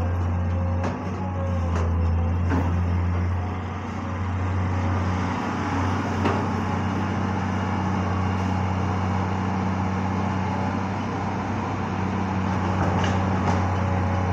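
Heavy diesel engine running steadily, a deep even hum, with a few faint knocks over it.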